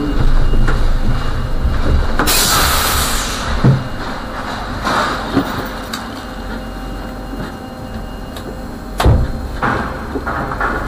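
Trolleybus creeping along at walking pace, with a steady low rumble, a sharp burst of compressed-air hiss about two seconds in, and a few knocks and thumps, the loudest near the end.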